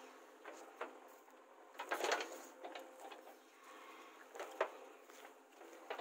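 JCB 3DX backhoe working its arm and bucket: scattered clunks and knocks over a faint steady machine noise, the loudest a cluster about two seconds in and a sharp knock a little past halfway.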